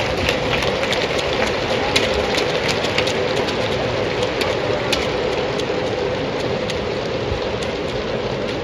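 Stadium crowd applauding: a steady wash of clapping, with a few sharper claps close by standing out.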